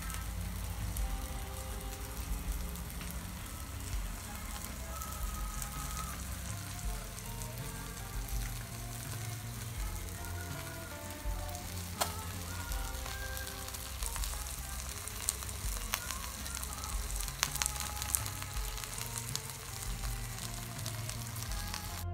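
Whole fish sizzling on an electric tabletop grill: a steady frying hiss with scattered crackling pops.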